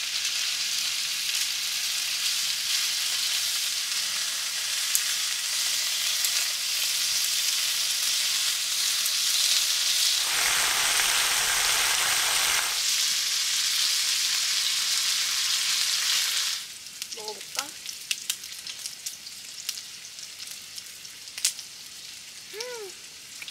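Thick slices of meat sizzling and frying in a hot pan, a dense steady hiss that swells louder for a few seconds around the middle. About two-thirds of the way in it drops off suddenly to a much quieter stretch with scattered clicks and a few short falling calls near the end.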